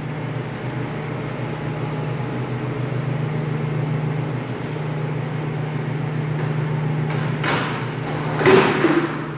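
Steady low machinery hum throughout. Near the end comes a metallic rattle and two knocks as the stainless steel sliding table of a meat band saw is pushed along its rails.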